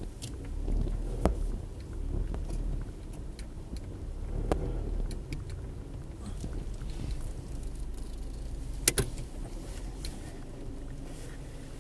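Inside a slow-moving car: a low engine and road rumble that eases after about five seconds, with scattered small clicks and rattles and one sharper click about nine seconds in.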